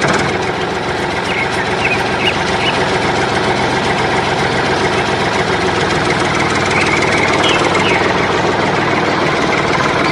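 An engine running steadily at idle, with an even knocking beat.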